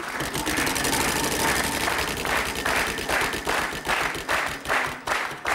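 Game-show prize wheel spinning, its pointer clicking against the pegs, the clicks rapid at first and slowing steadily as the wheel runs down.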